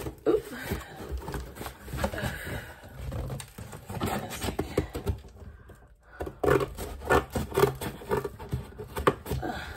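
A cardboard box being handled and pulled apart by hand: irregular scraping, crackling and flexing of cardboard flaps. There is a short lull a little past halfway, then a busier run of scrapes and crackles.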